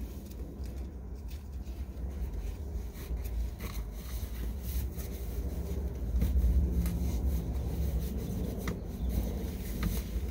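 Rubbing, scraping and rustling of fabric and straps as a net pocket organiser is fastened between the front car seats, with a few light clicks over a steady low rumble that grows louder about six seconds in.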